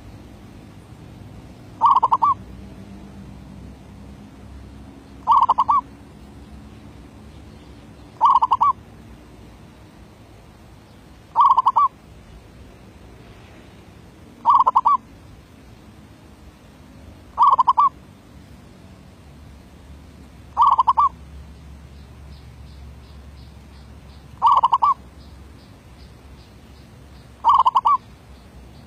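A zebra dove (merbuk) cooing: nine short, trilled coos, each about half a second long, repeated evenly about every three seconds.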